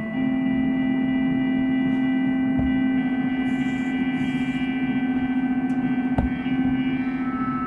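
A sustained, gong-like metallic tone with a strong low note and several higher overtones, held steady with a slight wavering, as a sound effect is being made. A short click comes about six seconds in.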